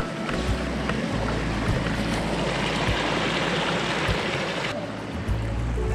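Small forest creek rushing over its bed, a steady noisy rush that drops away sharply near the end, over a low rumble of wind on the microphone.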